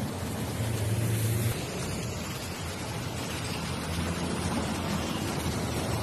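Road traffic noise: a coach passing close by with a low engine hum that swells briefly about a second in, over the steady rush of other passing vehicles.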